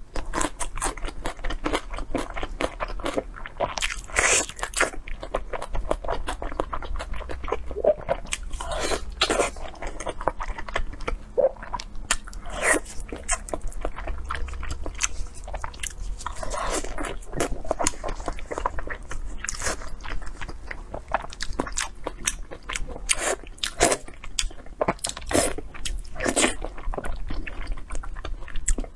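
Close-miked biting and chewing of a chunk of braised fatty pork with its skin on: a steady, irregular run of sharp mouth clicks and smacks.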